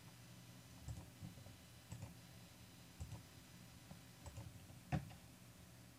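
Computer mouse clicking about ten times at uneven intervals, the loudest click about five seconds in, over a faint steady low hum.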